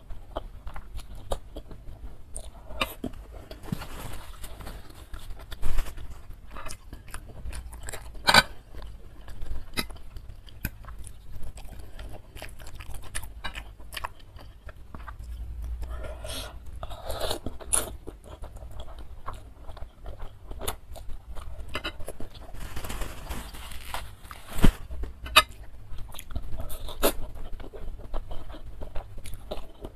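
Close-miked eating of instant noodles in spicy soup: wet chewing and mouth clicks throughout, with two longer slurps of noodles, about four seconds in and again past the middle.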